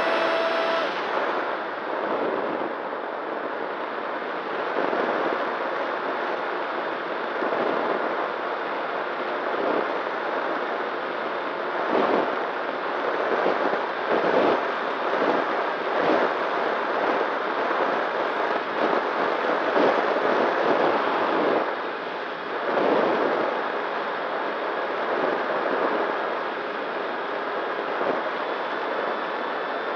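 Wind rush and motor and propeller noise of a Nano Talon FPV plane in flight, picked up by its onboard camera: a steady rushing noise with a faint steady hum under it and a few louder surges.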